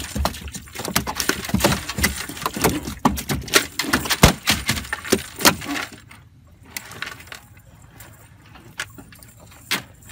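The metal chain weighting a fishing net rattling and clinking against the boat as the net is hauled aboard. The clinking is busy for about six seconds, then thins to a few scattered clicks.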